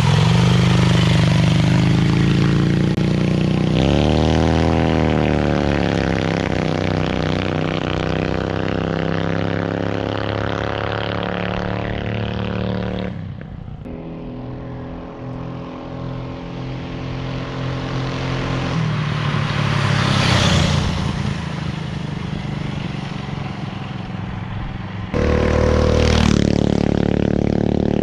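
Twin Predator 212 single-cylinder four-stroke engines on a minibike running under load, their note climbing and then holding steady. The sound jumps abruptly twice, and a rush of noise swells about twenty seconds in.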